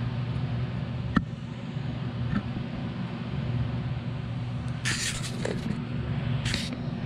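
Steady low mechanical hum of workshop machinery, with a sharp click about a second in and two short rustling, scraping handling noises near the end.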